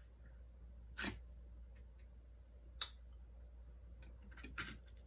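A spoon scraping and tapping against a glass bowl while scooping ground beef into taco shells: a short scrape about a second in, a sharp tap near three seconds, and a few quick clicks near the end, over a low steady hum.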